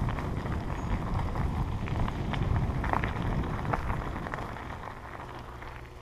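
Bicycle tyres rolling over a gravel path, a steady crackle of small stones with scattered sharper ticks, over a low rumble of wind on the camera microphone. The crackle fades about five seconds in.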